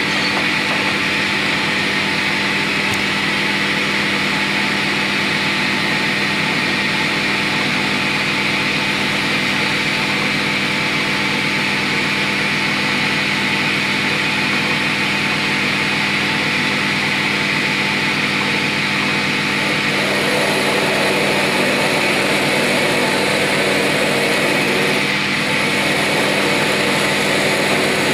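Metal lathe running steadily: motor and headstock drive giving a constant hum with a higher whine. About two-thirds of the way in, a rougher, hissier sound joins it as the tool is fed into the spinning workpiece.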